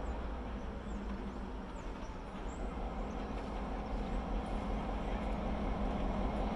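Diesel freight locomotive approaching slowly, its engine drone growing gradually louder.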